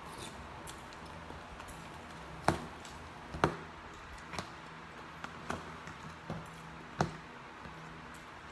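Metal spoon and fork clicking and scraping against plastic takeout containers. About six sharp clicks come irregularly a second or so apart, the loudest in the first half, over a low steady hum.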